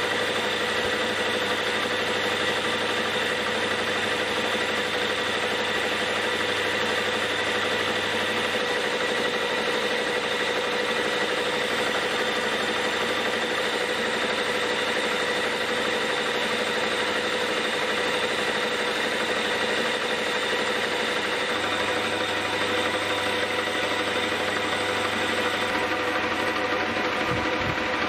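Old metal lathe running steadily with a constant whine, turning the register rebate on the outside edge of a steel chuck backing plate.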